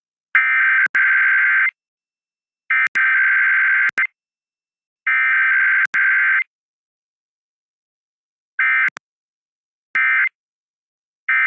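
Emergency Alert System SAME digital data bursts: a buzzing two-tone warble sent as three header bursts of about a second and a half each, then three short end-of-message bursts, with silent gaps between.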